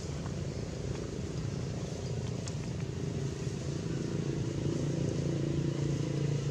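Steady low hum of a running motor, growing a little louder in the second half.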